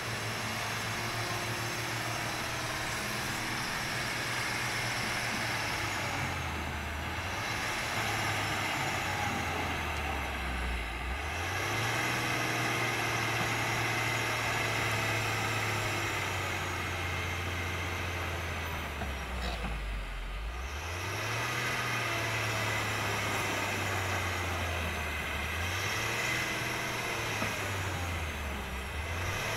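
Komatsu PC300-6 excavator's diesel engine running hard, its revs sagging and climbing back several times.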